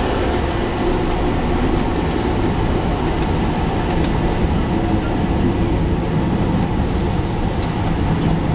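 Diesel railcar of the Chemins de Fer de Provence running along metre-gauge track, heard from the driver's cab: a steady rumble of engine and wheels with occasional faint clicks.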